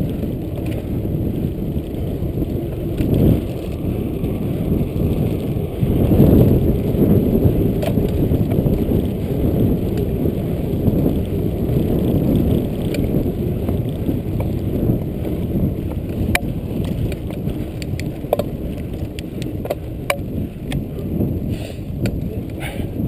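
Mountain bike riding over a dirt track: a loud low rumble of tyres and wind on the handlebar-mounted camera, with sharp clicks and rattles from the bike over bumps, coming more often in the second half.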